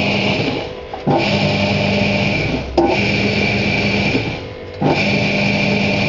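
Hoover 200M washing machine's drive motor and belt running in spells of about a second and a half. It drops off briefly three times, and a click sounds each time it picks up again, the stop-start drive of the wash action.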